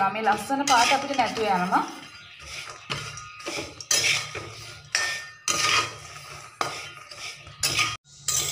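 A metal spoon scraping and stirring peanuts roasting in a metal pan on a gas stove, the nuts rattling against the metal in repeated strokes about two a second. A voice is heard for the first couple of seconds.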